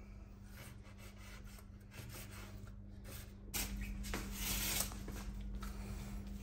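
Faint rubbing and scraping as a large whole fish is handled, growing louder about halfway through, over a low steady hum.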